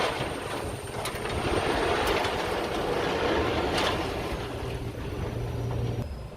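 Diesel construction machinery running and working the base material, with a steady engine noise and a few clanks about a second, two seconds and four seconds in.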